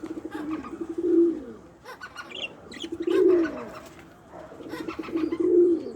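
A pigeon cooing three times, each coo a low pulsing call of about a second that falls in pitch at the end, with faint short budgie chirps between the coos.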